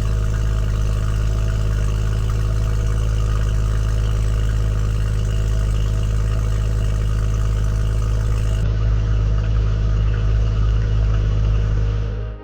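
BMW M140i's turbocharged 3.0-litre straight-six idling steadily, a deep exhaust drone at an even pitch; it fades out near the end.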